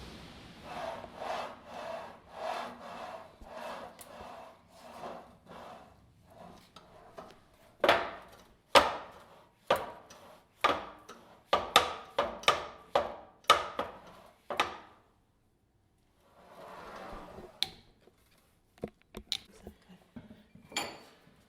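Repeated scraping strokes, about two a second, growing louder and sharper partway through, then stopping; a short hiss and a few light clicks follow near the end.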